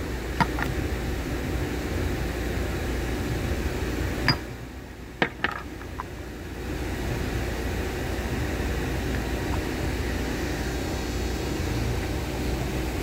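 Steady low hum that dips quieter for about two seconds around the middle. Over it come a few sharp metallic clicks, the loudest about four and five seconds in, as the parts of a Quincy compressor's air inlet valve are handled and the piston is pressed into its gasketed housing.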